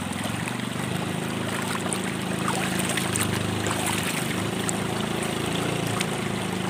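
Motor of an approaching bangka (a small motorized boat) running steadily over the flow of a shallow river, with water splashing from cupped hands a few seconds in.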